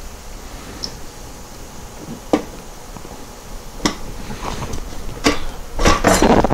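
Hand tools working on a VW 020 transmission while a seal is being removed: three sharp metallic clicks spaced a second or more apart, then a rough scraping noise near the end.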